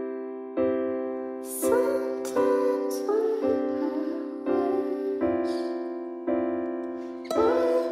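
Background music: a piano-led tune with notes struck about once a second and left to ring.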